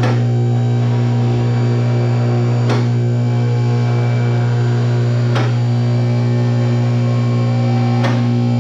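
Background music: a loud sustained drone of steady tones, with a sharp hit about every two and a half seconds.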